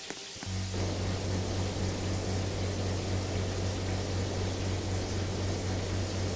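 Air conditioner running: a steady low hum under an even airy hiss, starting about half a second in after a brief lull.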